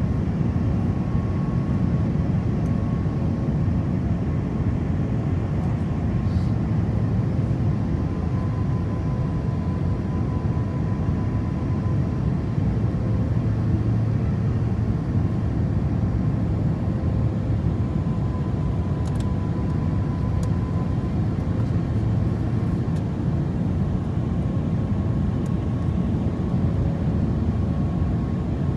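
Steady jet airliner cabin noise on the approach to landing: a low rumble of engines and rushing air, with a faint steady whine from the engines.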